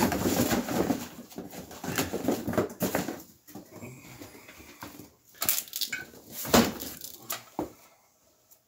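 Electrical cable being untangled, lifted and dragged across the floor: irregular rustling and scraping with a few sharp knocks, busiest in the first few seconds and dying away near the end.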